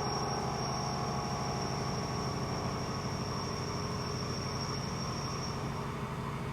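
2008 Kia VX500 CNC vertical machining center running: a steady low machine hum with a thin high-pitched whine that fades out near the end.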